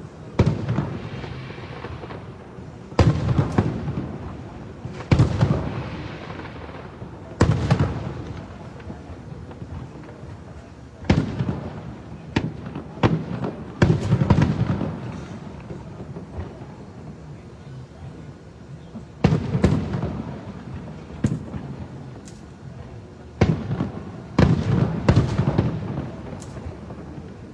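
Aerial firework shells bursting: sharp bangs every few seconds, several in quick clusters, each trailing off in a rumbling echo.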